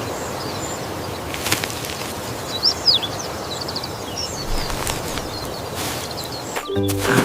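Outdoor nature ambience sound effect: a steady rushing noise with a few short bird chirps. Music starts up near the end.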